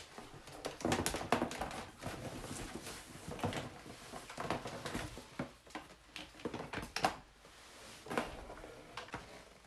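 Irregular clicks, knocks and rustling from handling: a power cord being untangled and pulled across cardboard boxes. The vacuum's motor is not running.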